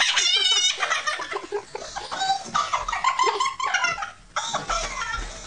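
A girl laughing hard in high, wavering squeals, breaking off briefly a little after four seconds.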